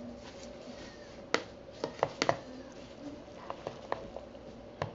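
Metal slotted spoon stirring a moist soy-and-vegetable mixture in a plastic bowl, knocking and clicking against the bowl: a cluster of sharp knocks a second or two in, then a few lighter clicks.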